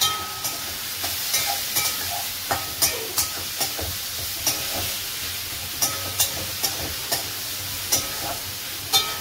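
Chopped potatoes, onion and tomato sizzling in oil in a steel wok while a metal spatula stirs them, clinking and scraping against the pan about twice a second.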